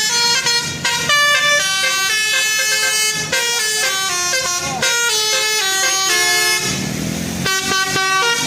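Basuri 'telolet' multi-tone bus horn playing a quick melody of short and held notes, breaking off briefly for a low rumble about seven seconds in.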